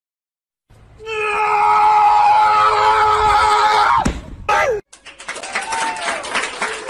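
A loud, high-pitched vocal cry held on one steady pitch for about three seconds, breaking off with a sharp downward slide, then a shorter falling cry and a noisy scramble with wavering cries.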